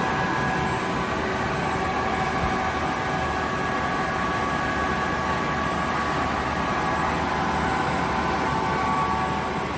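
Kaeser SK 25 SFC 15 kW rotary screw air compressor with inverter drive running under load, building pressure: a steady noise with several steady whining tones held over it.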